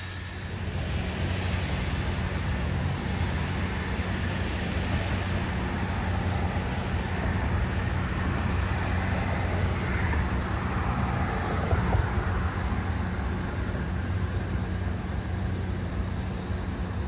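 A large engine running steadily: a low rumble with an even hiss over it.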